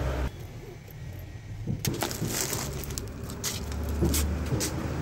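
Plastic shopping bag crinkling and rustling against the phone as it is carried, with irregular clicks and knocks of handling noise starting about two seconds in.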